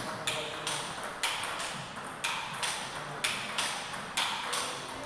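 Table tennis ball in a rally, sharp clicks of the ball bouncing on the table and striking the paddles, coming in pairs about once a second.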